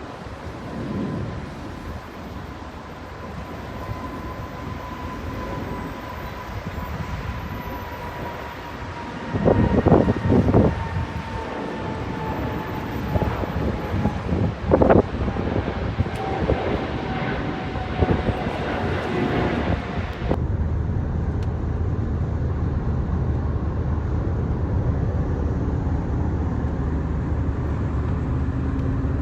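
Jet airliner engine whine: a single tone slowly falling in pitch over a rumbling background, with a few loud knocks around the middle. About two-thirds of the way through, the sound cuts abruptly to a steady low engine hum.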